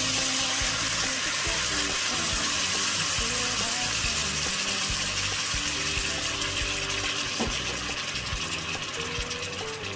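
Oxtail pieces sizzling in oil and chilli bean sauce in an enamelled cast-iron pot, a steady hiss that grows softer over the last few seconds.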